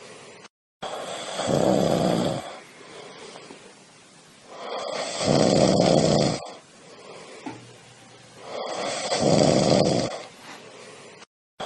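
A cat snoring in its sleep: three loud snores about four seconds apart, with quieter breathing between them. The sound drops out briefly twice.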